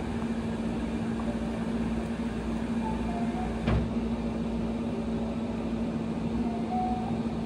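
Steady mechanical hum, like a running appliance or motor, with one sharp knock a little past halfway.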